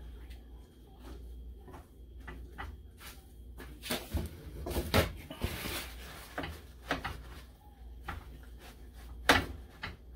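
Paper towel rustling and crumpling as wet whole porgies are patted dry by hand in a glass bowl, with scattered small handling clicks. A single sharp knock, the loudest sound, comes a little after nine seconds in.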